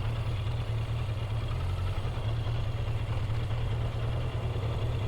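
Car engine and road noise as a steady low rumble, with no change in pitch.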